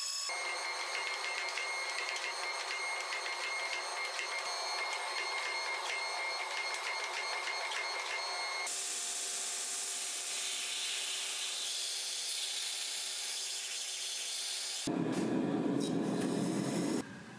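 Portable band saw cutting through a small block of steel, followed by a hydraulic forging press running as it squeezes the red-hot piece, and near the end the hot steel quenched in a tank, the loudest part, which cuts off suddenly.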